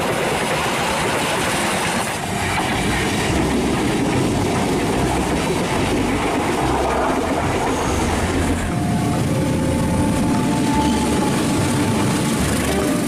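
Passenger trains passing close by at speed, a steady rush of wheel and carriage noise on the rails. Near the end a CC206 diesel-electric locomotive runs past.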